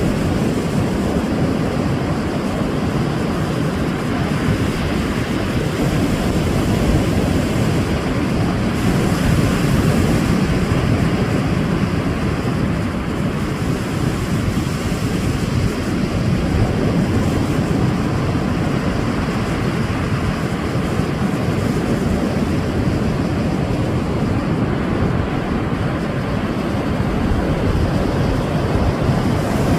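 Sea waves washing onto the shore: a continuous rushing surf that swells and eases slowly.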